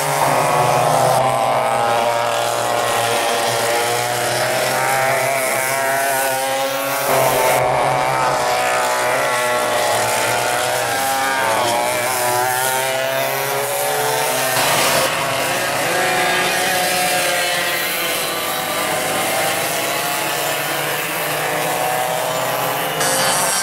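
Several vintage racing go-kart engines running at high revs, their pitch rising and falling as the karts speed up and slow through the corners, with the mix changing abruptly a few times.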